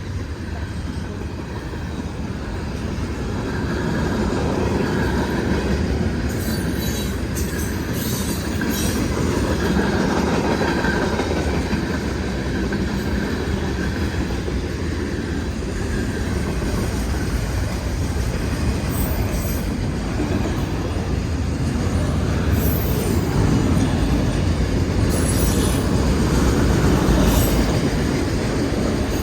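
Freight train cars rolling past: a steady rumble and clatter of steel wheels on rail, with brief high wheel squeals now and then.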